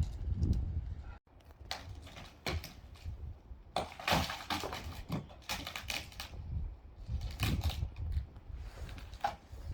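Irregular cracking and crunching of wood, in uneven bursts that are densest in the middle, as the timber of a wooden summer house is broken apart.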